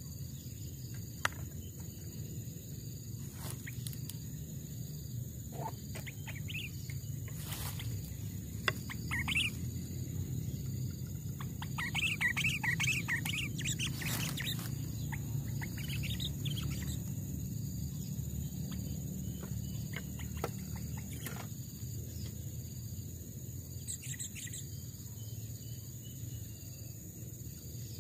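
Sooty-headed bulbul (kutilang) calling in scattered short chirps, with a quick run of warbled notes about halfway through. A steady low rumble and a steady high-pitched drone run underneath.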